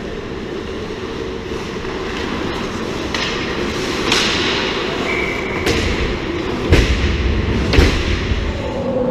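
Ice hockey play at the net: skate blades scraping the ice under sharp stick-and-puck clacks, with heavier thumps around the goal from about six and a half seconds in. A short high tone sounds about five seconds in.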